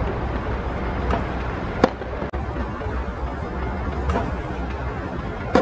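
Tennis ball knocks on a hard court, bounces and racket strikes: four sharp hits a second or more apart, the loudest about two seconds in and near the end, over steady outdoor background noise.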